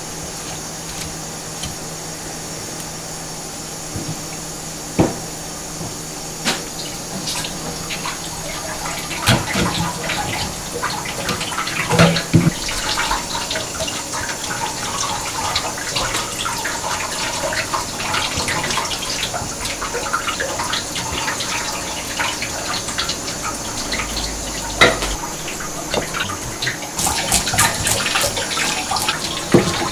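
A kitchen tap running a thin, steady stream into a stainless steel sink while fish is filleted beside it. Scattered knocks and scrapes of the knife and fish on a plastic cutting board come over the water, sparse at first and busier after the first several seconds.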